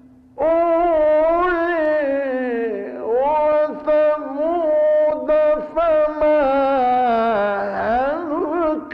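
A male reciter's voice chanting the Quran in the melodic mujawwad style, drawing out one long ornamented phrase on held, gliding notes, from an old live public-recitation recording.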